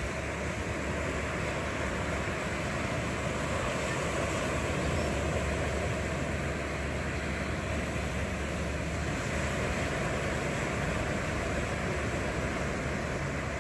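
Small sea waves washing onto a sandy beach in a steady, even rush, with a low rumble of wind on the microphone.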